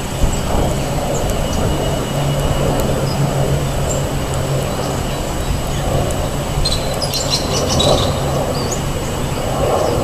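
A vehicle engine runs steadily with a low hum, and small birds give a short run of high chirps about seven seconds in.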